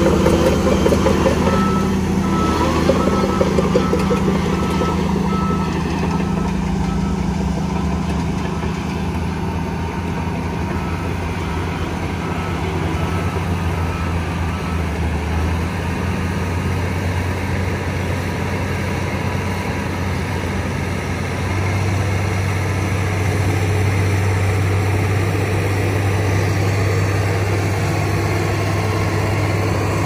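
Shantui crawler bulldozer's diesel engine running steadily under load as the blade pushes a pile of sand, its drone rising a little in pitch about two-thirds of the way through. Through the first half, a faint series of high, evenly spaced beeps sounds behind the engine.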